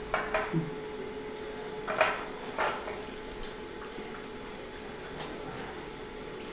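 A spatula knocks against a stainless steel mixing bowl of chopped vegetables, a few quick taps at the start, then a couple more about two seconds in and one near the end. A faint steady hum runs underneath.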